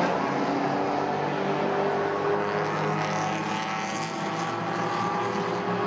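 Toyota KP61 Starlet's 1.3-litre four-cylinder engine idling steadily.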